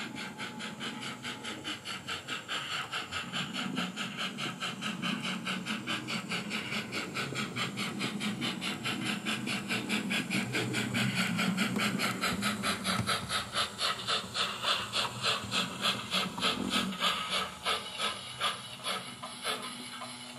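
ESU LokSound V4.0 sound decoder in an Oxford Rail 00 gauge Adams Radial 4-4-2T tank engine model, playing a steady, rapid beat of steam exhaust chuffs through its small speaker, with the hum of the model's motor and wheels underneath. The chuffs grow louder toward the middle as the locomotive passes and fade near the end.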